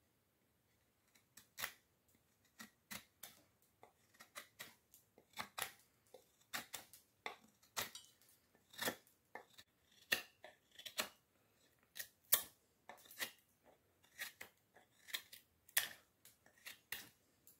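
Bark River Bushcrafter knife whittling beech wood: short, crisp slicing cuts, about two a second, in an uneven rhythm, starting about a second in.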